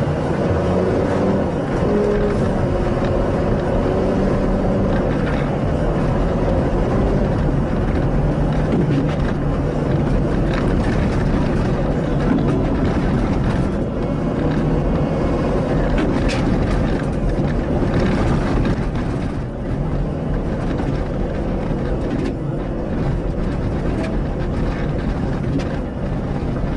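Steady vehicle engine and road noise running throughout, with a few faint ticks or knocks and no single big crash impact.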